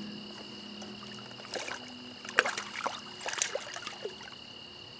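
Stream water running steadily. A handful of small sharp splashes and knocks come between about one and a half and three and a half seconds in, as a landed rainbow trout is handled in the shallows.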